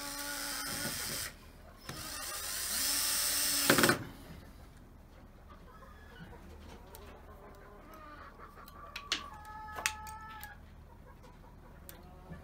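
Yellow cordless drill driving screws into a wooden coop frame: a one-second run, a short pause, then a two-second run that builds under load and stops sharply. Later a chicken calls with a steady pitched call, and there are a couple of sharp clicks.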